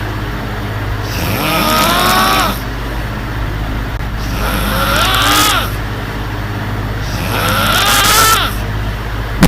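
A woman snoring: three snores about three seconds apart, each lasting about a second and rising then falling in pitch. An electric fan hums steadily underneath.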